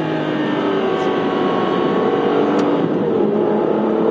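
Aston Martin Virage's 6.0-litre V12 running under way, heard from inside the cabin, steady and loud. About three seconds in its pitch dips and then climbs again.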